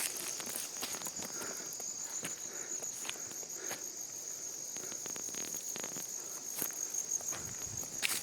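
Steady chorus of field insects, a high pulsing trill like crickets, with scattered short rustles and clicks over it.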